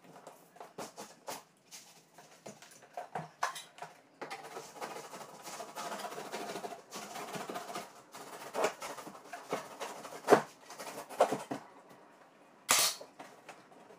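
Hand work on a window frame: irregular knocks and clicks, a few seconds of scraping a few seconds in, the loudest knock about ten seconds in, and a short sharp rasp near the end.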